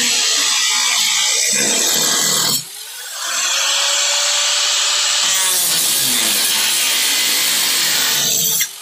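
Power tool running loud as it cuts sheet metal during removal of a car's quarter panel. It cuts out briefly about two and a half seconds in and again near the end, and its whine spins back up after the first break.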